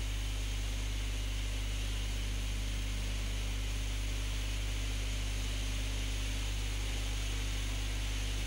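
Steady low electrical hum with an even hiss underneath, unchanging throughout: the background noise of an old analogue video recording.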